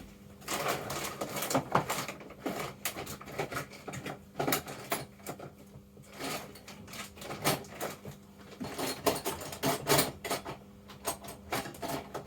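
Rummaging through small tools and objects on a workbench: a string of light clicks, taps and clatters, with a faint steady hum underneath.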